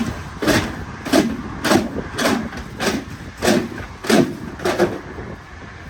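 Old accordion shutter being forced along its track in jerks: about nine loud scraping rattles roughly half a second apart, stopping near the end. The shutter is stiff and stuck from age.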